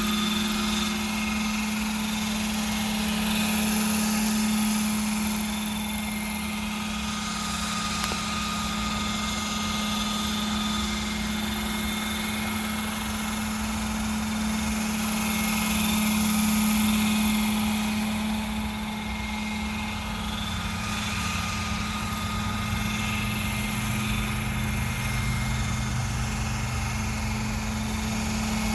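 Hirobo Dauphin scale RC helicopter flying, its motor and rotors giving a steady high drone that swells and fades slightly as it moves about.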